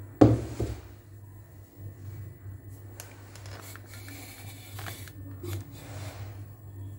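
A single loud metallic clunk of cookware being set down, ringing briefly, followed by a few light clicks of handling, over a steady low hum.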